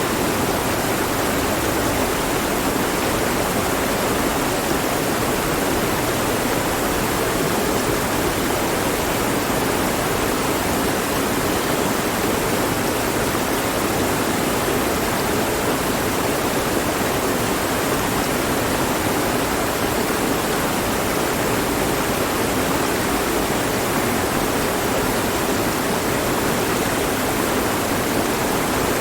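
Mountain stream flowing over rocks: a steady, unbroken rush of water, strongest in the lower-middle range.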